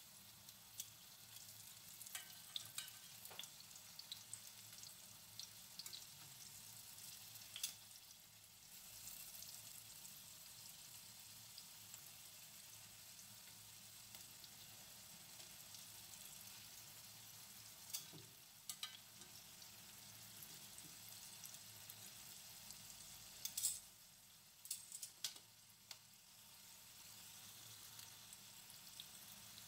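Kabocha pumpkin wedges frying in oil in a pan: a faint, steady sizzle with scattered sharp clicks as metal tongs turn the wedges, the loudest cluster a little over three-quarters of the way through.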